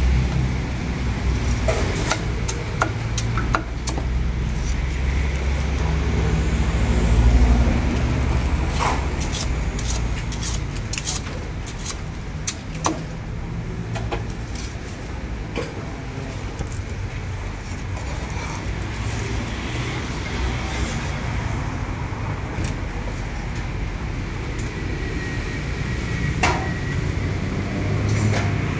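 Low, steady rumble of road traffic, heaviest in the first several seconds, with scattered sharp knocks of a cleaver on a wooden chopping block.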